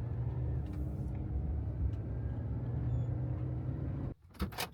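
Camper van driving on the highway: a steady low drone of engine and tyres heard from inside the cabin, which cuts off suddenly near the end.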